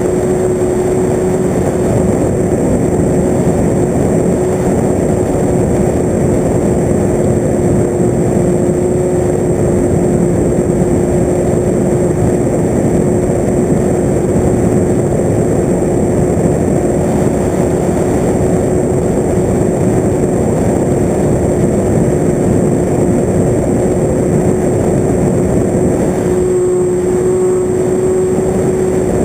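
Radio-controlled FPV aircraft's motor and propeller running steadily, a constant hum at one pitch over heavy wind rush, heard from the camera on board.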